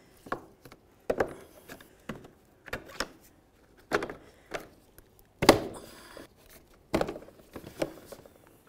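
2009 Dodge Journey grille's plastic locking tabs being pried loose from the bumper cover with a flat blade screwdriver: an irregular series of sharp clicks and snaps, the loudest about five and a half seconds in.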